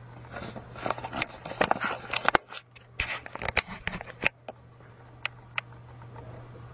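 Rapid clicking and clattering of small hard objects for about four seconds, then two single clicks, over a steady low hum.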